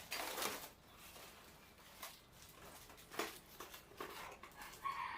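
Plastic packaging being handled and unwrapped: a few short crinkles and rustles, spread unevenly, the loudest in the first half-second.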